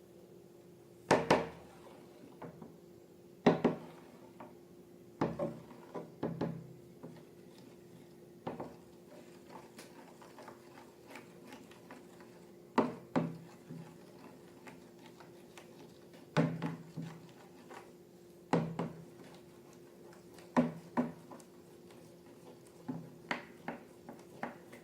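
Intermittent sharp knocks and clicks of objects being handled and set down, some in quick pairs, every two or three seconds, over a faint steady hum.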